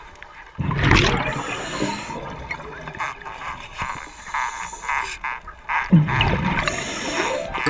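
Underwater bubbling and rushing of a diver's exhaled air, with a sudden loud burst about half a second in and another near the end.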